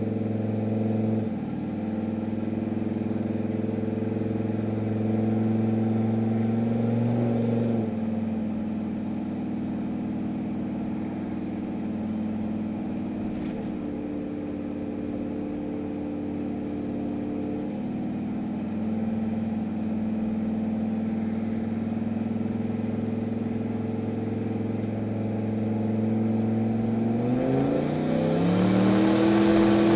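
Turbocharged Chevrolet Silverado pickup engine heard from inside the cab, running steadily at cruise. Its pitch steps down twice in the first eight seconds. Near the end the revs climb hard under full throttle, louder, with the turbo spooling up in a rising whistle.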